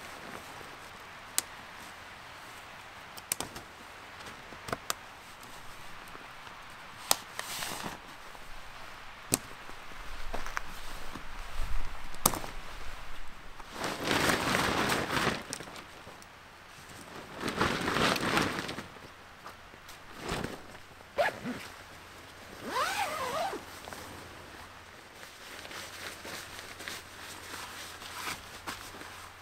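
Nylon cot tent being pitched: sharp clicks as the fly is fastened to the poles, then two long zipper pulls about halfway through, followed by fabric rustling.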